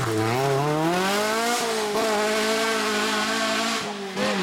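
Peugeot 206 rally car's engine accelerating hard: revs climb to a gear change about a second and a half in, then pull on at steady revs, with a brief lift and blip of the throttle near the end.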